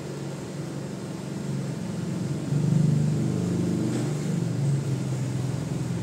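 A motor engine running with a low hum, growing louder about two and a half seconds in and then easing off, with a single light click about four seconds in.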